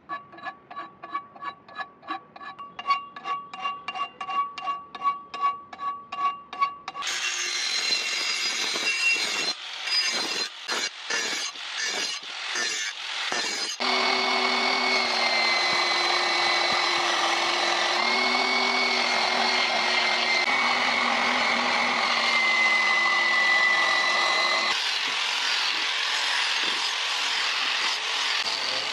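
Rhythmic scraping strokes on the steel cleaver blade, two or three a second, each leaving the blade ringing for the first seven seconds. Then a portable belt sander sands the blade, choppy at first and then running steadily with a high whine.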